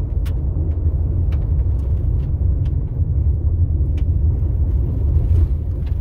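Road noise inside a vehicle driving on a gravel road: a steady low rumble of tyres and engine, with scattered sharp ticks from the gravel.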